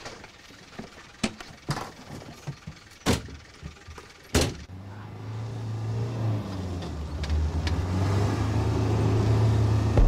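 Vehicle doors banging shut: light clicks and knocks, then two loud slams about a second and a half apart. A car engine's low hum then comes in and grows steadily louder as the 4x4 drives off along a track.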